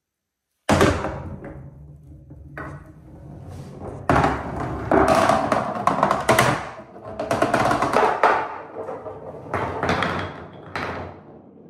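Balls rolling and knocking down a wooden marble-run slope: a loud clatter starts suddenly about a second in, then a dense, uneven run of wooden knocks and rattles in several waves, dying away near the end.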